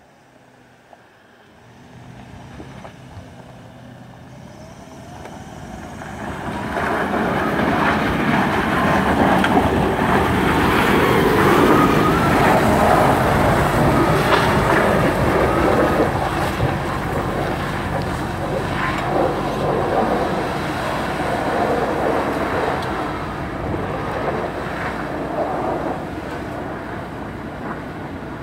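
Toyota LandCruiser 200 Series V8 working up a steep, rocky dirt climb in low range, its tyres crunching over gravel and loose stones with occasional sharp stone clicks. The sound swells over the first several seconds, is loudest around the middle, then eases off gradually.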